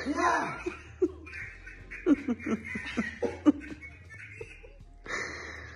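People laughing: an excited cry that rises and falls right at the start, then a run of quick, short laughs about two seconds in.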